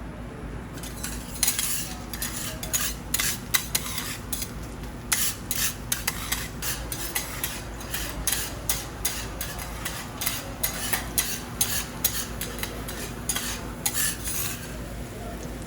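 Metal cooking utensils clicking and scraping on a teppanyaki iron griddle in quick, irregular strokes. The strokes start about a second in and stop shortly before the end.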